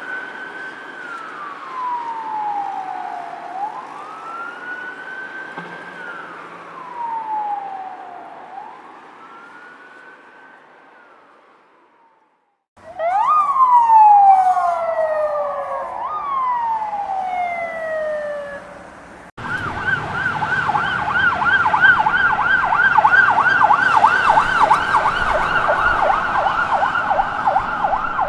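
A series of police car sirens. First comes a slow wail, rising quickly and falling slowly about every four seconds, fading away. After a short gap, a louder siren sweeps down in long falls, and from about two-thirds of the way through a rapid yelp warbles up and down about four times a second.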